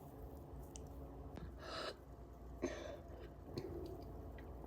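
A person breathing out softly twice, about one and a half and two and a half seconds in, with a few faint clicks in between.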